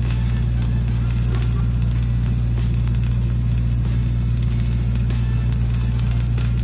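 Engine-driven welding machine running at a steady speed, with the faint crackle of a flux-cored arc weld over it.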